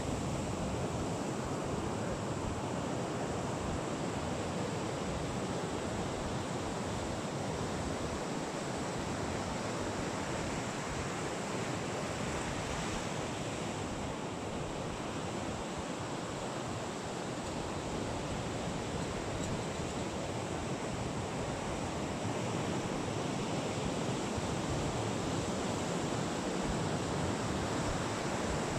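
Steady wash of ocean surf on the beach, an even rushing noise.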